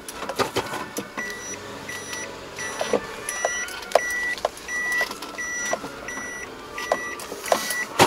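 Electronic warning beeper inside a Suzuki Jimny's cabin, a high tone repeating about twice a second, over irregular knocks and rattles from driving on a bumpy dirt track.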